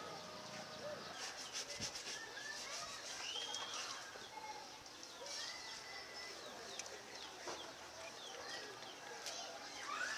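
Outdoor neighbourhood ambience: scattered short bird chirps, faint distant voices and a few small clicks.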